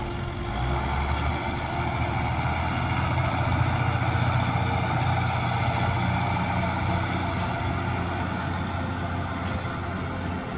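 Tractor diesel engine running steadily under load as it pulls a round baler.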